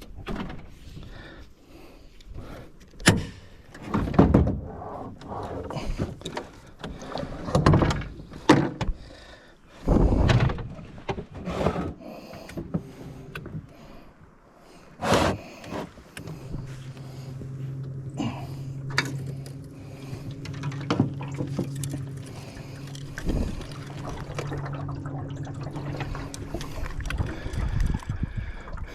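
Irregular clunks and knocks against a small boat's hull as it is pushed off a sandbar. About halfway through, a boat motor starts a steady low hum that runs on.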